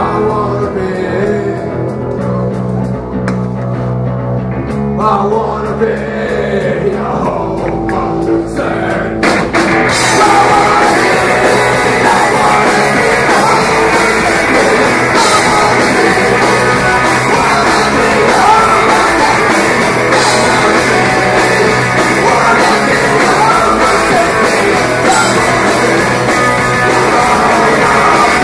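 Rock band playing live with electric guitars and drums. A sparser, quieter passage gives way about nine seconds in to the full band playing loud and dense.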